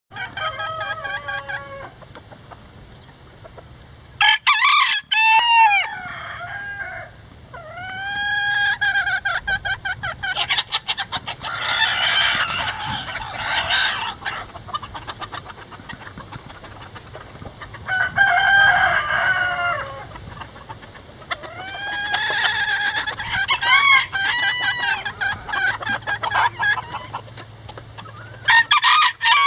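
Bantam roosters crowing again and again, about half a dozen crows, with bantam hens clucking in short rapid runs between them.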